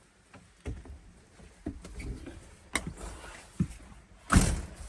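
Footsteps knocking up a camper's entry steps and onto its floor, a few separate thumps about a second apart, then a louder thud near the end.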